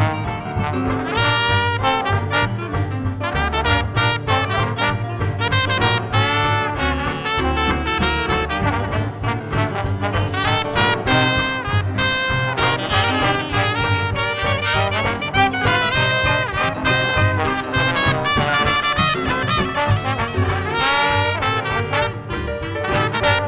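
Traditional Dixieland jazz band playing an instrumental chorus: brass horns carry the melody over a steady bass line and rhythm section.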